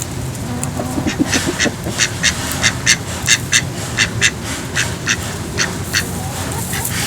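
Domestic ducks quacking: a run of short, sharp calls, about three a second.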